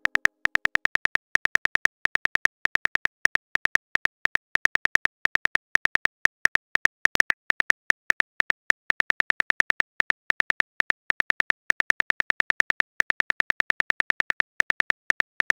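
Keyboard click sound effects of a texting app, one short click per typed character, several a second in quick runs with brief pauses.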